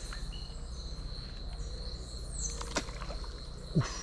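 Steady high-pitched insect drone with short, high, falling chirps every second or two, and two sharp clicks late on, the louder one near the end.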